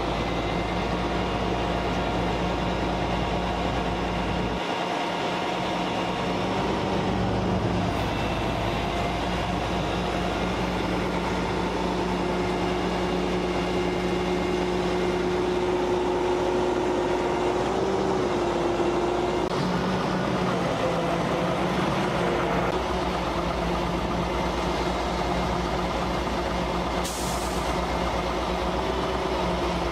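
Heavy tow truck's diesel engine running steadily, with a short hiss near the end.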